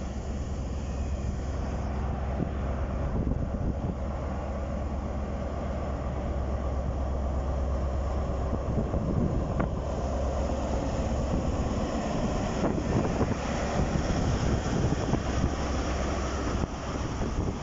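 Class 43 HST power car with an MTU 16V4000 diesel engine running under power as the train pulls away, a steady low drone. The rolling noise of the coaches passing grows louder in the second half.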